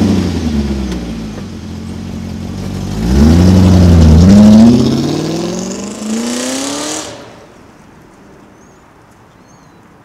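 BMW E34 530i's V8 engine revving as the car pulls away. It rises hard about three seconds in, drops briefly at a gear change, climbs again, then fades as the car drives off.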